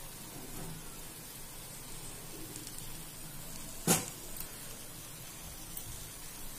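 Faint steady background hiss, with a single sharp click about four seconds in.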